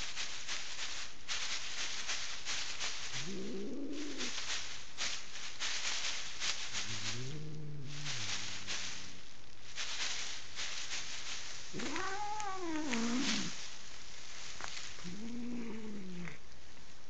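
An angry domestic cat yowling in warning four times, a few seconds apart. Each yowl is long and rises then falls in pitch, and the third is the highest and loudest. Clear plastic drop sheeting crinkles steadily underneath.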